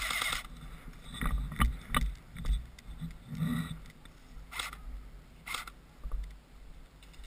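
Wind rumbling on the microphone, with several short rustles or clacks: a cluster from about one to two seconds in and two more near the end.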